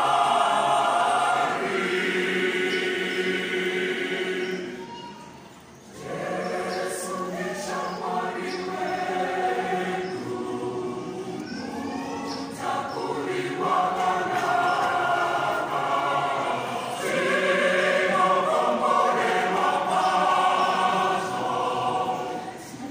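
Large mixed choir of men and women singing a Shona hymn in harmony. The singing fades to a brief hush about five seconds in, then comes back in full.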